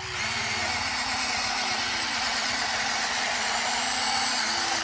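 A loud, steady hiss that starts and stops abruptly, over the whine of a Huina RC excavator's electric motors, which slides up and down in pitch as the arm and bucket move.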